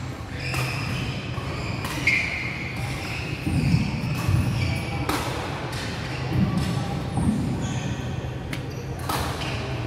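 Badminton play in a large sports hall: sharp racket hits on the shuttlecock at irregular intervals and short high-pitched squeaks of shoes on the wooden court floor, over the echoing hubbub of the hall.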